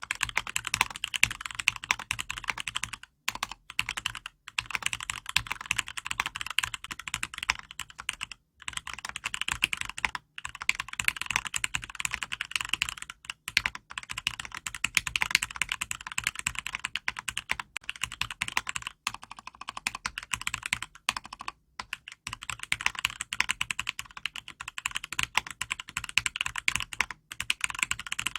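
Fast, steady typing on a mechanical keyboard with an acrylic case and Cherry MX Red linear switches, lubed with Krytox 105 and filmed: a dense run of light clacks with short pauses between bursts.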